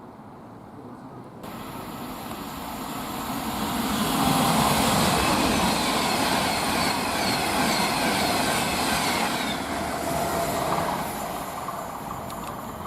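A train passing on the main line: the rush of wheels on rail builds, holds loud for several seconds, then fades away.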